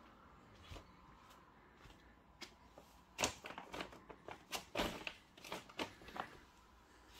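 Footsteps crunching and crackling over broken plaster and debris on a floor. After a quiet start, a dense, irregular run of crackles and clicks begins about three seconds in.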